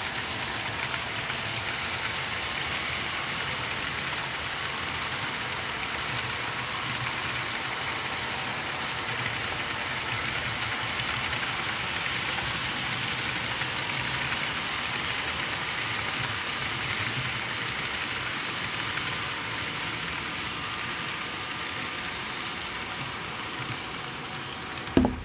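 Model railroad freight cars rolling past on track, a steady rattling rumble of wheels on rails that eases slightly as the last cars go by. A single sharp knock right at the end.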